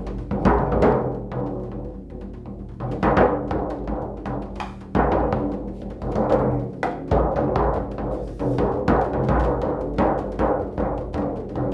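Live percussion music: a drum beaten in a quick, uneven pattern over deep tones that ring on beneath the strikes.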